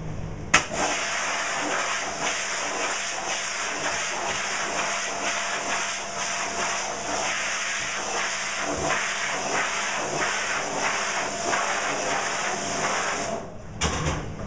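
High-pressure water jet from a pressure-washer lance spraying a screen-printing mesh, rinsing it off. It starts with a knock about half a second in, runs as a steady hiss and cuts off about a second before the end.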